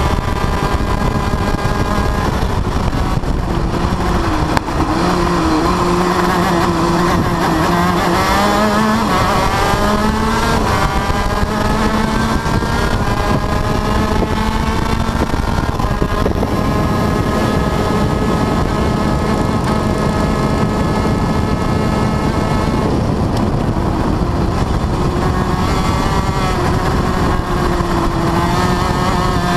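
TM KZ10B 125 cc two-stroke shifter kart engine at racing speed, heard over road and wind noise. Its pitch drops about a quarter of the way in, climbs back over a few seconds as it pulls through the revs, holds high, then dips and rises again near the end, as on braking for corners and accelerating out.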